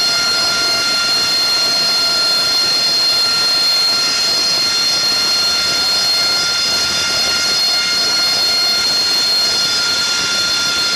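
AV-8B Harrier's Rolls-Royce Pegasus turbofan running at idle on deck: a steady jet whine, several high whistling tones over a rushing roar, holding even throughout.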